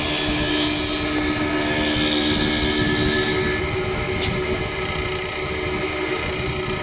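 CNC wood lathe running as it turns a wooden round bar. Its motors give a steady whine of several tones over the rough noise of the cut, and one of the tones drops out about halfway through.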